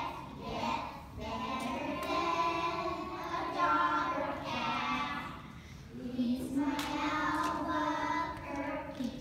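A group of preschool children singing a song together, in two phrases with a short break about six seconds in.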